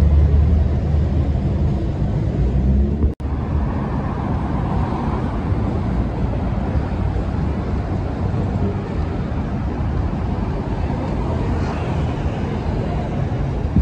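Outdoor city street ambience with traffic. A heavy low rumble fills the first three seconds, the sound breaks off abruptly about three seconds in, and a steady even street noise follows.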